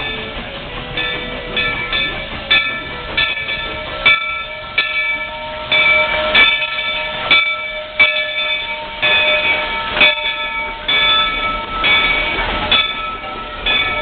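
Baldwin 4-6-0 steam locomotive pulling in alongside, with a steady run of ringing metallic strokes, roughly one to two a second, over the rumble of the engine and its cars. The strokes are typical of the locomotive bell rung on arrival at a station. It grows louder a few seconds in as the engine comes alongside.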